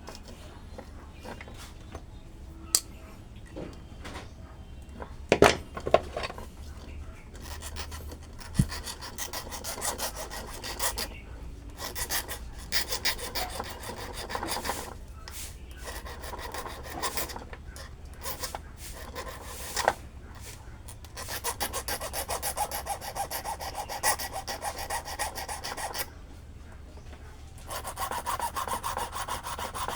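Fast, repeated scraping and rasping strokes that grow louder partway through, with a few sharp clicks in the first seconds and a steady low hum underneath.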